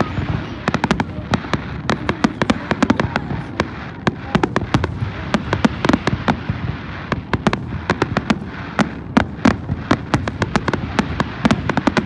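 Fireworks display: a dense run of sharp bangs and crackles, many a second and often in rapid clusters, over a continuous low rumble of shells bursting.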